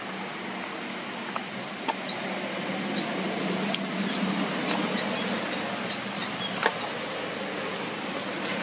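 Steady outdoor background noise with a low hum, with a few faint, short clicks scattered through it.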